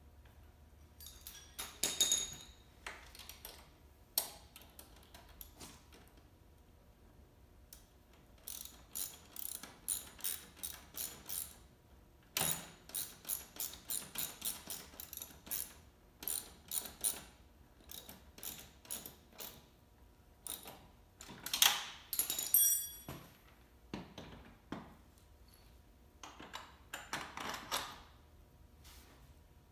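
Ratchet wrench clicking in runs of strokes, about two clicks a second, as a wheel nut on a small electric ATV is tightened. A louder clatter of tool clicks comes about three-quarters of the way through.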